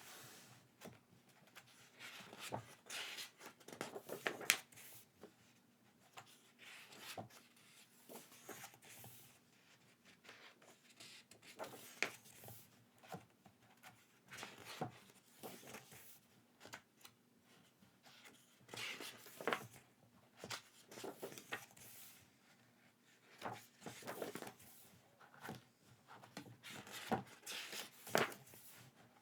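Intermittent rustling and handling of paper and plastic packaging, with soft taps and clicks as items are picked up and set down.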